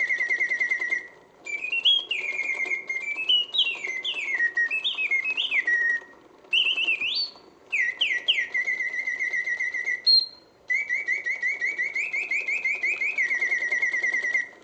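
Vintage 1950s Karl Griesbaum singing bird cage automaton singing through its clockwork bellows-and-whistle mechanism. It plays rapid warbling trills and quick rising and falling whistled glides in phrases, with a few short pauses between them. It sings with full voice and hits all the oscillating notes, a sign the restored movement is playing well.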